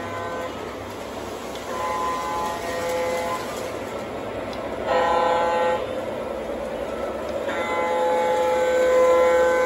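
O gauge model diesel locomotive's sound system blowing its horn in four blasts (short, long, short, then a long final blast starting about three-quarters of the way through) over the steady rumble of the train running on three-rail track. The rumble and horn grow louder as the locomotive approaches.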